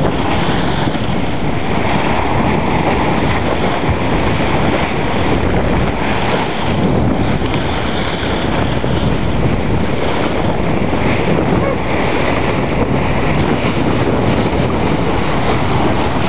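Wind buffeting the microphone over the steady rush of water along a small racing sailboat's hull under sail, swelling and easing every second or two.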